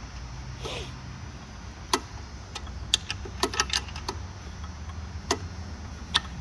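Craftsman 9/16 dual ratcheting wrench clicking as it tightens a lock nut on a bolt: sharp separate ratchet clicks at an uneven pace, bunched about two to four seconds in and a couple more near the end.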